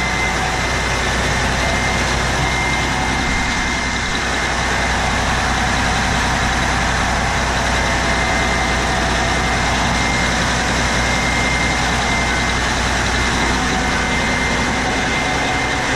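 Caterpillar 3412 V12 marine diesel, the trawler's main engine, running steadily under way. It is heard from inside the engine room as a loud, even drone with a constant thin high whine over it.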